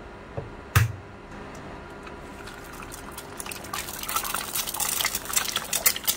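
An egg dropped into hot oil in a ceramic-coated frying pan, sizzling and crackling with spitting that grows louder over the last couple of seconds. A single sharp knock comes about a second in.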